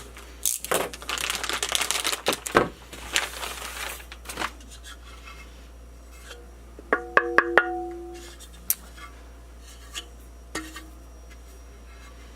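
Packaging rustling as a carbon fiber chassis plate is unwrapped, then a quick run of sharp taps with a brief ringing tone about seven seconds in, and a single click near the end.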